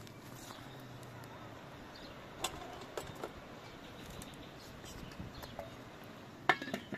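Quiet outdoor background with a few scattered sharp clicks and one louder clack near the end.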